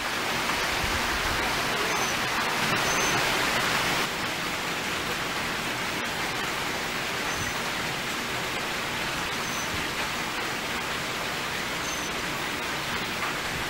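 Steady hiss of falling rain, easing a little about four seconds in, with a few faint short high chirps now and then.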